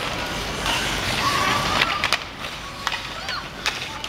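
Skates scraping across the ice and hockey sticks and pucks clacking on it, with several sharp clacks in the second half. Children's voices call faintly.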